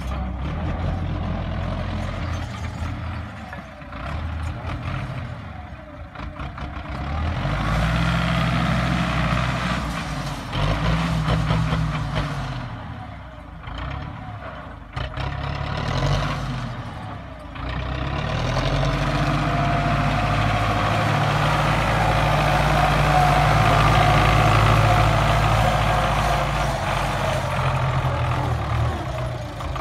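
Tractor engine running while the tractor drives and turns, revving up and easing off several times, then holding a steady higher rev for a long stretch before dropping near the end.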